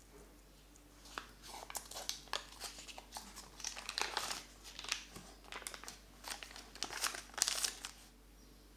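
A paper butter wrapper is peeled open and crinkled off a block of butter. It crackles in quick irregular bursts from about a second in until near the end.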